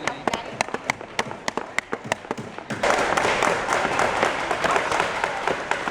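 Several hammers tapping nails into small wooden kit pieces, many quick irregular strikes overlapping. About halfway through, a louder hubbub of many voices sets in under the hammering.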